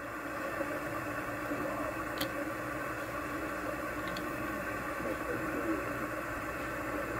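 Cobra 2000 GTL CB radio receiving on upper sideband: steady static and hiss from its speaker, with a weak, barely readable distant station under the noise as band conditions fade out.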